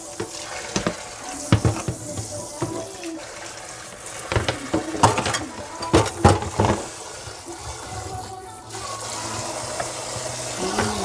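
Kitchen tap running into a sink while beets are rinsed, with a run of sharp knocks and clatters from handling them, thickest around the middle.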